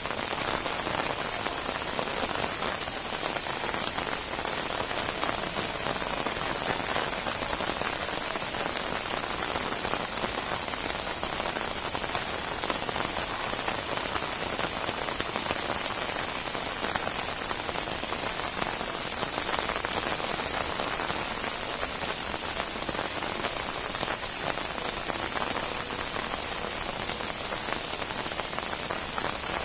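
Steady heavy rain falling on a surface, a dense hiss of many drops with fine pattering throughout and no change in strength.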